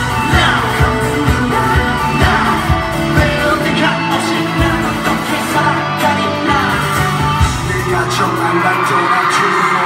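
Pop song played live through a concert sound system, with group vocals singing over a steady drum beat of about two hits a second. The drum beat drops away about eight seconds in.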